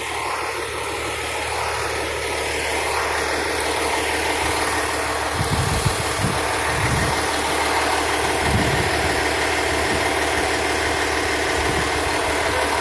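Fire engine idling: a steady low engine hum, with a few low bumps around the middle.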